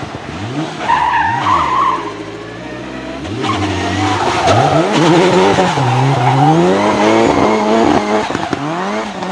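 Nissan 200SX S13 drifting: the turbocharged engine revs up and down repeatedly, its pitch climbing several times, with a tyre squeal about a second in.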